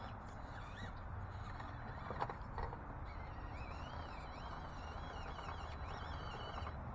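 FMS FCX18 Chevrolet K10 RC crawler's small electric motor and geared drivetrain whining, the pitch rising and falling with the throttle as it creeps over rocks. Two sharp knocks come about two seconds in, as the truck bumps on the stones.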